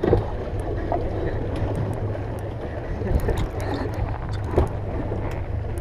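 Steady low rumble on a small outboard fishing boat, with scattered light clicks and knocks as a conventional saltwater reel is cranked.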